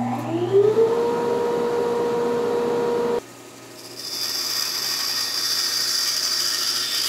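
Grizzly band saw starting up: the motor's whine rises over about a second and settles into a steady hum, then breaks off suddenly. About four seconds in, the running blade cuts a thin strip of ABS plastic with a high hiss.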